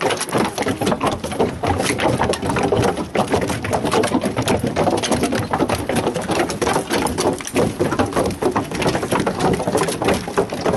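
Hooves of several horses on the wooden deck of a plank bridge: a dense, irregular run of overlapping knocks.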